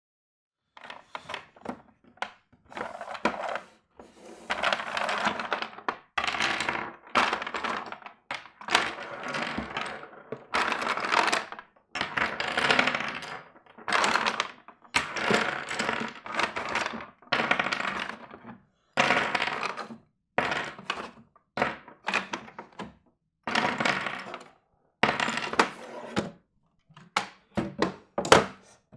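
Chess pieces knocking, clacking and sliding on a board: a busy, irregular run of sharp clicks and knocks mixed with longer rattling scrapes.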